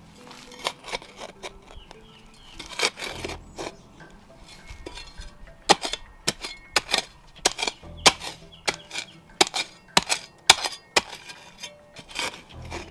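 Cold Steel Spetsnaz shovel blade chopping into rocky soil while digging a hole: sharp metallic chops and clinks. They are scattered at first, then come steadily, a little under two a second, from about halfway.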